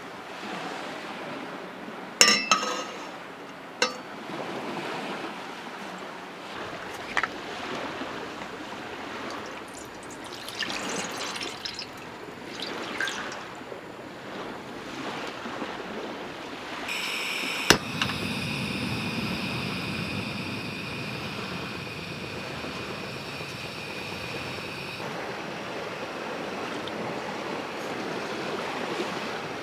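Water poured from a bottle into a stainless steel pot on a gas burner, amid sharp clicks and clinks of metal and glass. About two-thirds of the way through, a sharp click is followed by a steady hiss with a thin high whine that lasts several seconds.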